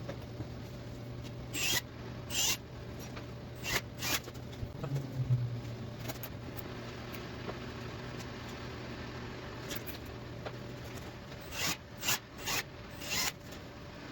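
Nylon zip ties being ratcheted tight through ATV plastic fenders: short rasping zips in two clusters, over a steady low hum.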